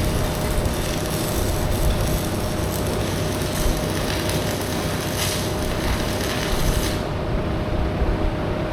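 Stick-welding arc hissing and crackling as a crack in a steel excavator bucket is welded up, cutting off about seven seconds in. A steady low hum runs underneath.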